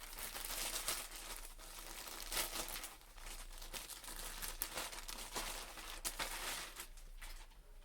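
Mail packaging being torn open and handled, with irregular crinkling and crackling throughout.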